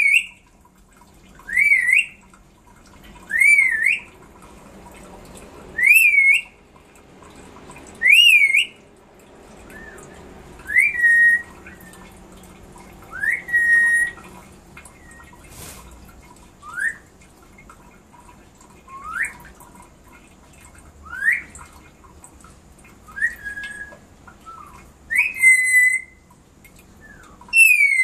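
Black-capped lory calling with short whistles, one about every two seconds, each a quick glide up and down in pitch; the later ones are sharp rising upslurs. A single click about halfway through.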